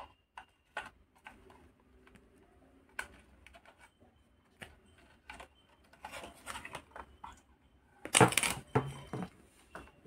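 Handling noise from a sheet-metal microwave control panel and its plastic membrane touchpad: scattered light clicks and taps, then rustling and clatter, loudest about eight seconds in as the panel is turned over.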